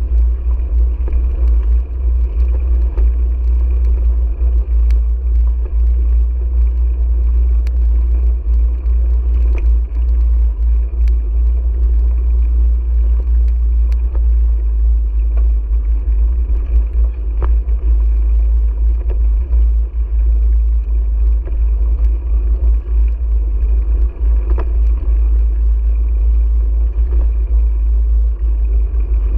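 Wind buffeting the microphone of a bicycle-mounted GoPro while riding, a steady loud low rumble, with tyre noise on the pavement and a few faint rattles.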